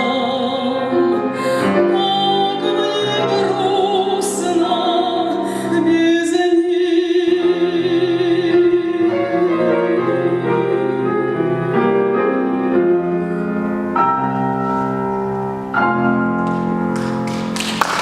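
Female voice singing with wide vibrato over grand piano in a slow romance-tango, holding one long note for several seconds. The piano then closes with a few struck chords.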